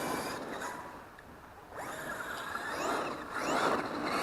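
Electric motor and drivetrain of a Traxxas X-Maxx RC monster truck whining, the pitch rising and falling again and again as the throttle is worked. It fades to faint about a second in, then comes back louder.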